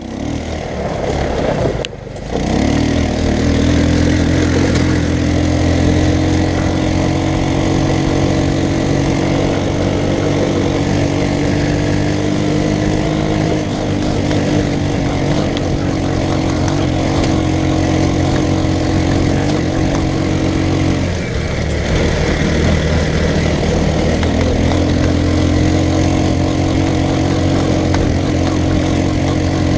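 Off-road go-kart's small engine running steadily. It eases off briefly about two-thirds of the way through, then picks back up.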